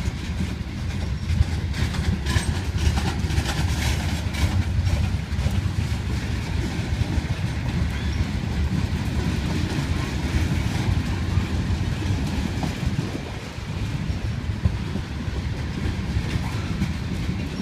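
Freight train of covered hopper cars rolling past, a steady low rumble with the clatter and clicks of wheels over the rails.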